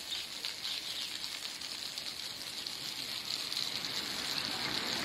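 Water ballast jetting out of a tractor tyre's valve under pressure, a steady hissing spray with the water falling back like rain.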